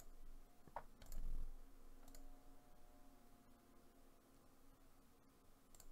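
A few faint computer mouse clicks in the first couple of seconds, over quiet room tone with a faint steady hum.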